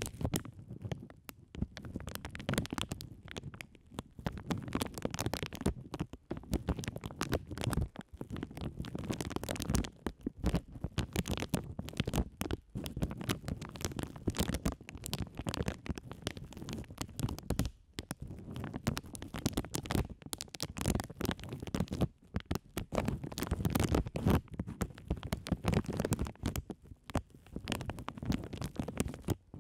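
Clear plastic bags crinkled and rubbed directly against two microphones, giving a dense crackle over a low rumble from the handling, with a few brief pauses.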